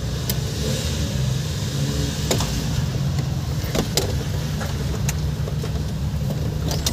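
Suzuki Multicab's engine running steadily, heard from inside the cab while it is driven on a road test of its freshly overhauled transmission, with a few short sharp clicks along the way.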